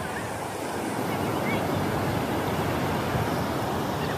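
Ocean surf breaking and washing onto a flat sandy beach: a steady, even wash of waves.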